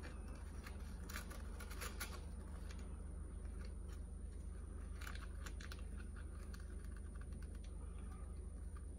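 Faint, irregular small clicks and scratches, clustered about a second in and again about five seconds in, over a steady low hum.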